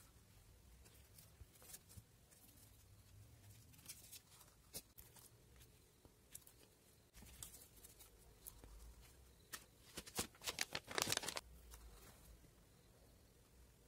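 Paper and sticker handling on a desk: faint scattered rustles and taps, with a quick run of louder scratchy paper strokes about ten seconds in.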